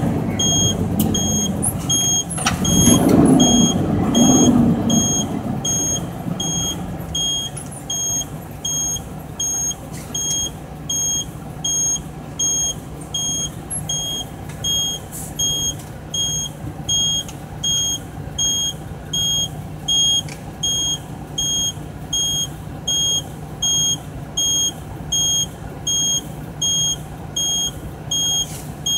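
Mack truck's diesel engine heard from the cab, louder for the first few seconds and then settling into a steady low idle hum as the truck stops in traffic. Over it a high electronic beep repeats about once a second.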